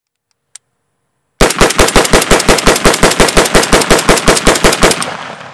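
Rapid rifle fire from a DRD Tactical M762 in 7.62×51 NATO: about two dozen shots at roughly seven a second, stopping near the end with a fading echo. A faint click comes just before the shooting starts.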